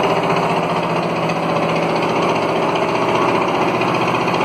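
Stationary engine running steadily under load, driving a sugarcane mill (trapiche) through a belt and pulley while cane is fed through its rollers.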